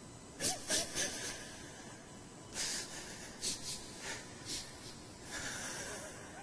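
A person's sharp, ragged breaths and sniffs in an uneven run, about nine in all, two of them longer: the sound of a Quran reciter weeping and unable to go on.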